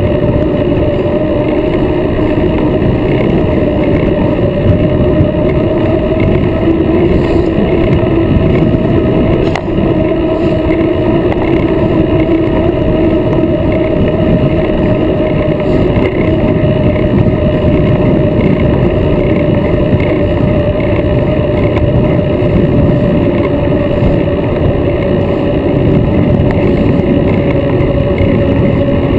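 Wind and road noise from a bicycle riding on asphalt, picked up by a bike-mounted camera: a loud, continuous rush with a steady hum running through it that wavers slightly in pitch.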